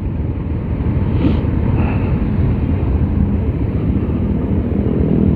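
Yamaha Scorpio Z's single-cylinder four-stroke engine running steadily, heard from on the bike, fitted with a Pulsar 220 carburettor; the level rises slightly.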